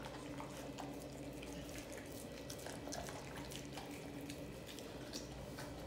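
An American bully dog licking and gnawing at the skin of a raw turkey leg: faint wet smacking and lapping with many small clicks.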